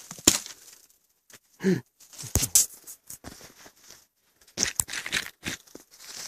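Footsteps crunching through snow and twiggy brush, with irregular crunches and gaps between steps.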